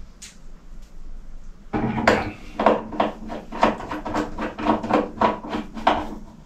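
Hands working on the metal fittings of a hot water cylinder, with short clicks and knocks coming a few times a second from about two seconds in, over a low steady hum.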